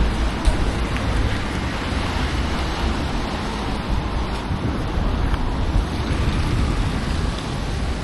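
Outdoor winter street ambience: a steady noisy rumble of wind buffeting the microphone over the sound of passing traffic, with no clear tones or distinct events.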